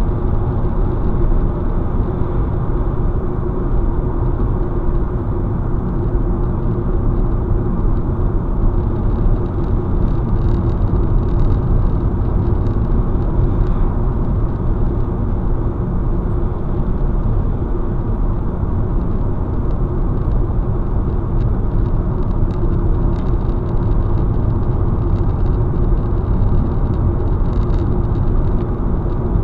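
Steady road noise of a car driving at highway speed, heard from inside the cabin: tyre rumble and engine drone with a constant low hum.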